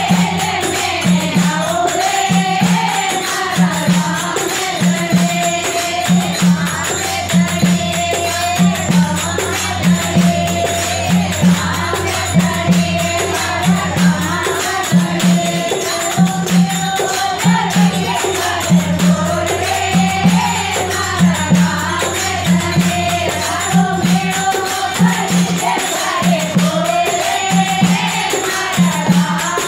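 Group of women singing a Rajasthani devotional bhajan in unison, backed by a dholak beating a steady rhythm and small brass hand cymbals (manjira) jingling.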